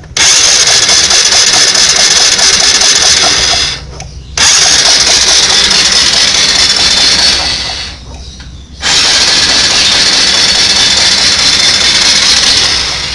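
Honda Supra X125's electric starter cranking its 125 cc single-cylinder engine with the spark plug removed, turning it over without firing in three runs of about three and a half seconds each. The cranking pumps the dirty carbon-cleaning fluid out through the plug hole.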